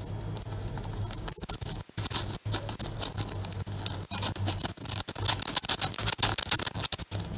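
Paper sachet of baking powder being shaken and tapped over a sieve of flour: quick crinkling, rustling ticks that get busier and louder near the end.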